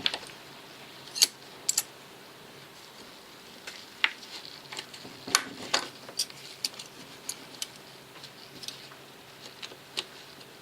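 Irregular light metallic clicks and taps of small folding-knife parts and a driver being handled on a work surface, as the knife's liners are taken off. There are a few louder clicks, about a second in and again past the midpoint.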